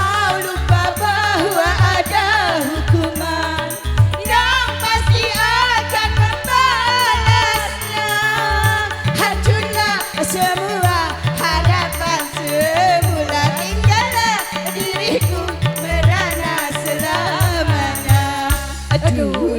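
Dangdut koplo music: hand drums beat a brisk rhythm under a wavering, ornamented melody line.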